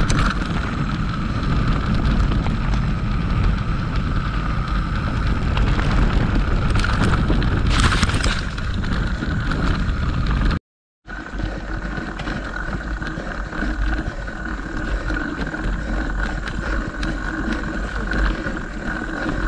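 Wind rushing over a camera microphone while riding a mountain bike, with rattle from the bike and a steady high-pitched tone underneath. The sound cuts out completely for under a second about halfway through.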